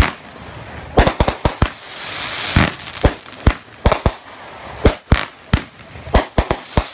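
Aerial fireworks bursting overhead: a rapid, irregular string of sharp bangs, with a spell of hissing crackle about two seconds in.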